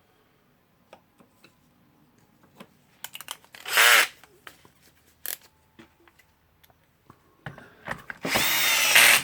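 Electric drill-driver motor run in two short bursts, the second about a second long, driving a screw into the rotary hammer's housing, with small clicks and knocks of handling in between.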